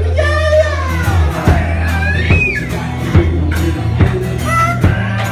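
Live rock band playing: electric bass, guitar and drums, with a voice yelling "yippee-yi-yi" near the start and singing "cockadoodle-doodle-doo" about four seconds in.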